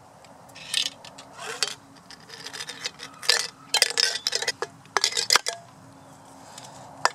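A spent lead air-rifle pellet rattling and clinking inside a shot aluminum soda can as the can is handled and shaken, in irregular bursts of metallic clinks. Near the end comes a single sharp knock.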